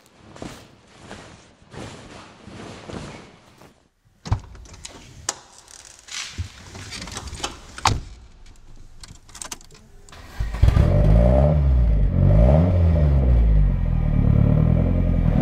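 Soft rhythmic rustles, then a run of sharp clicks and knocks, then about ten seconds in the Ford Escort RS Cosworth's turbocharged four-cylinder engine starts loudly and is revved, its pitch rising and falling.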